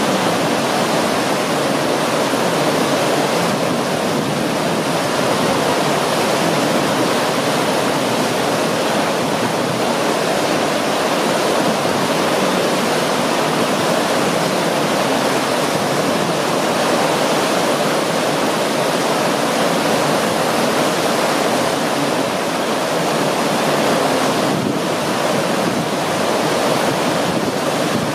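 Whitewater rapids of an artificial slalom canoe channel rushing and churning, a steady, loud wash of water noise.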